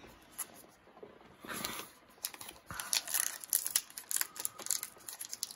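Wrapper of a 2018 Topps Heritage baseball card pack being torn open and crinkled in the hands, a run of short crackles from about two seconds in.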